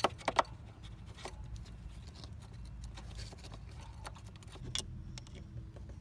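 Small plastic clicks and taps of an EVAP solenoid valve and its hose being handled and fitted back into place: a few sharp clicks right at the start, then scattered lighter ticks.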